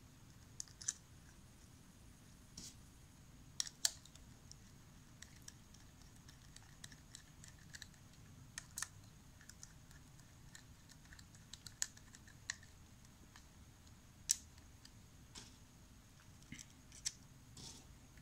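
Small screws and a screwdriver clicking and ticking against the metal backing plate of a windshield washer pump as the screws are set in and turned down. The clicks are light and scattered, often a second or more apart.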